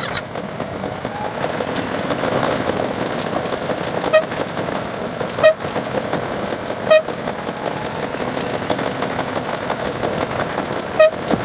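Local train ride sound played back at ten times speed: a dense, rapid crackle of wheel and rail noise, with four brief high chirps.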